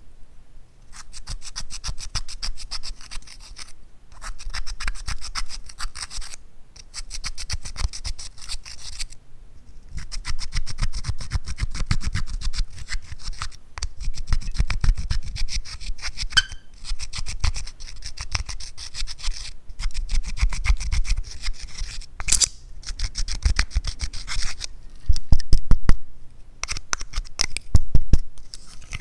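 Pressed eyeshadow being scraped and crumbled out of the pans of a plastic palette with a thin pointed tool: runs of rapid scratching strokes with short pauses between them. Louder knocks come near the end.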